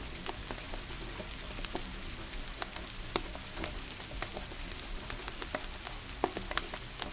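Wood fire crackling with irregular sharp pops over a steady hiss of falling rain.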